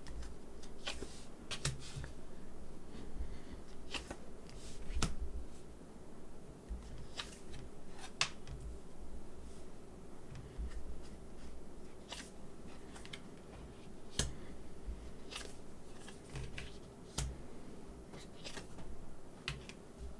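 Tarot cards being dealt one at a time onto a wooden table, about a dozen light snaps and taps at irregular intervals over a faint steady hum.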